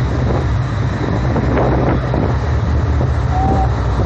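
Tour speedboat's engines running steadily at speed, a constant low hum, with wind buffeting the microphone on the open deck.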